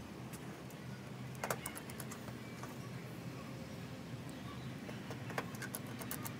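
Small clicks and taps from handling a phone and small repair tools, with a cluster of clicks about a second and a half in and another near the end, over a low steady hum.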